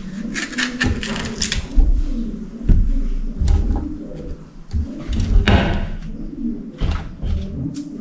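Kitchen knife cutting capsicum and knocking against a tray of chopped vegetables: a few sharp taps, with a short scrape about halfway through. A bird coos repeatedly in the background.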